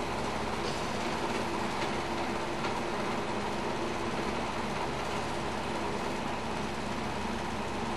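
Steady droning hum over a constant hiss, unchanging throughout, with a few faint ticks.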